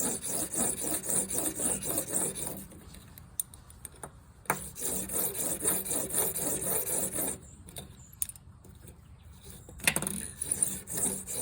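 Broadhead blade held in a Blade Sled sharpener being stroked back and forth across a 400-grit abrasive: quick, rhythmic rasping strokes in three runs, with short pauses between them. A sharp click comes at the start of the second and third runs.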